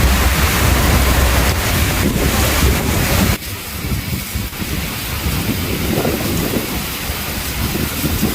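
Heavy rain with a deep rumble of thunder. About 3 seconds in, the loud rumble stops suddenly, leaving quieter rain with faint low rumbling.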